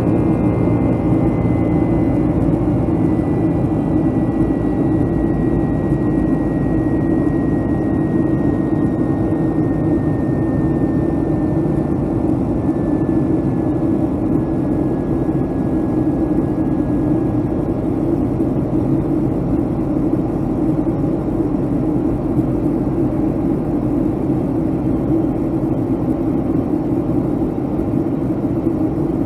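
Jet cabin noise inside a Boeing 757-200 in the climb: steady engine and airflow noise, with a thin high engine whine that glides slowly down in pitch and fades out a little past halfway.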